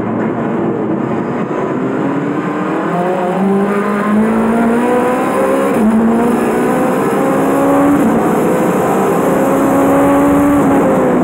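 Turbocharged Honda K24 four-cylinder of an EG Civic time-attack car heard from inside the cabin under full throttle, the engine note rising steadily through the revs. It is broken by quick upshifts of the six-speed sequential gearbox about six and eight seconds in, and the revs fall near the end.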